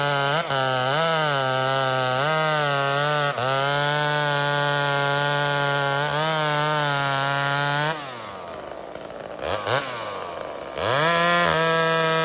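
Homelite two-stroke chainsaw at full throttle cutting through a log, its pitch sagging briefly each time the chain bites in. About eight seconds in it drops back to idle, with one quick blip of the throttle, then revs back up to full speed near the end.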